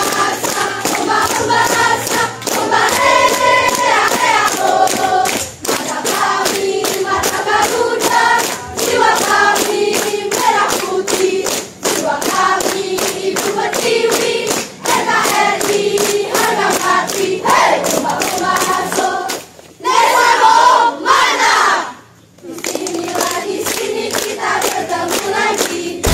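A large group of schoolgirls singing a song together in unison, with steady rhythmic hand clapping. The singing breaks off briefly twice near the end.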